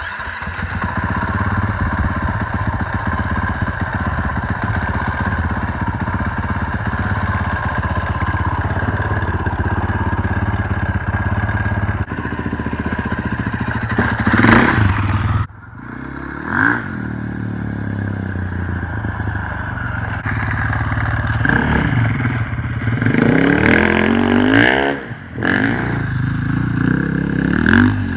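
Husqvarna FE 450 four-stroke single-cylinder dirt bike engine catching right at the start and idling steadily for about twelve seconds, then revving in a series of rising and falling blips as the bike pulls away and rides off.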